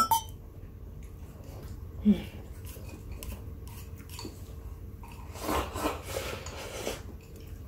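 Eating utensils clicking and scraping against a rice bowl, with a brief hummed "mm" about two seconds in.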